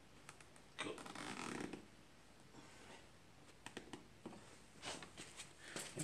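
Quiet handling sounds: a cotton pillowcase rustling and a plastic zip tie being pulled through its catch around a shop vac's exhaust fitting, with a short rasp about a second in and a few light clicks later.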